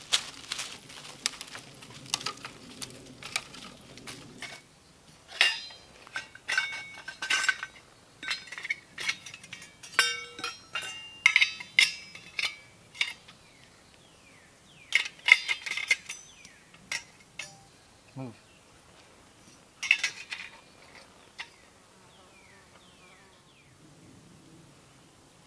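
Irregular clicks and clatter from a small metal camp wood stove and pot being handled and fed with twigs, with some short, ringing metal clinks and twigs snapping.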